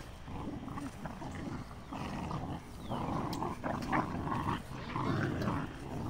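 Several puppies growling while they play-fight, a low rough grumbling that comes and goes in stretches.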